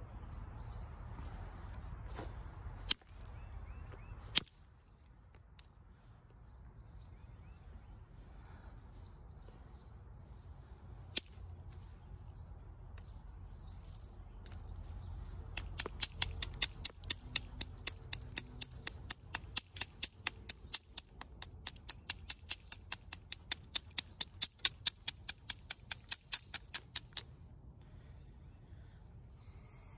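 Copper-tipped billet striking the edge of a red jasper biface: a few single sharp taps, then a long, even run of light clicking taps, about four a second, with a ringing tone, stopping abruptly about 27 seconds in. The knapper is trimming and shaping the blade's edge.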